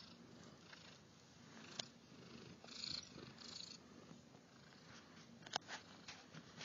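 A cat purring, a faint steady rumble, with a few small clicks and rustles.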